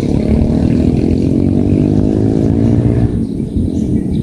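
A motor vehicle's engine running past, its pitch rising slowly before it fades out about three seconds in, over a steady low rumble.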